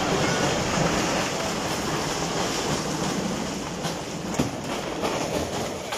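A five-storey concrete-frame building under construction collapsing: a continuous rumble and clatter of falling concrete, brick and timber props, with a sharp crack a little over four seconds in.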